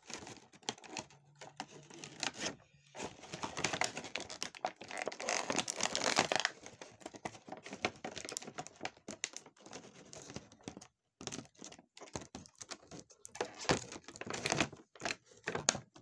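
Plastic packaging crinkling and rustling as it is handled, with a long busy stretch early on and another burst near the end.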